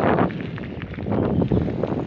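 Wind buffeting the microphone: an uneven, rumbling rush that dips quieter in the middle.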